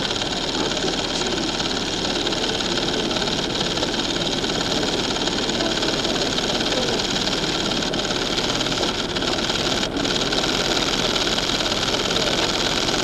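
Steady mechanical running noise under a constant hiss.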